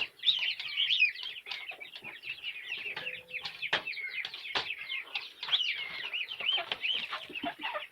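Young chickens calling continuously: many short, high, bending peeps and clucks overlapping, with a few sharp clicks, one just under four seconds in and another near the five-second mark.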